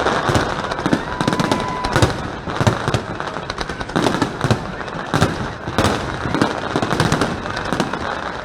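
Aerial fireworks display going off in rapid succession: a dense, irregular string of booms, bangs and crackles overlapping each other, several a second, with a faint whistle about a second in.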